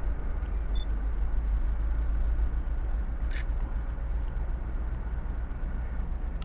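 Low, steady rumble of a diesel freight locomotive heard at a distance as it approaches, with a brief click a little over three seconds in.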